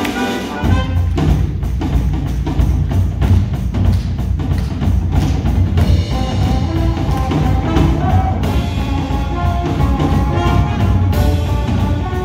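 Music with a steady drum beat and heavy bass, the bass coming in strongly about half a second in.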